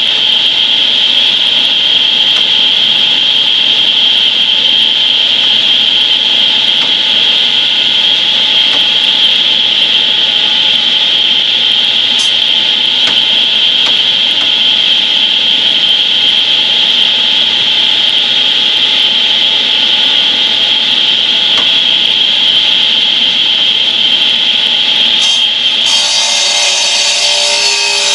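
Concrete saw cutting pavers: a loud, steady, high-pitched grinding whine of the blade in stone, which changes character near the end.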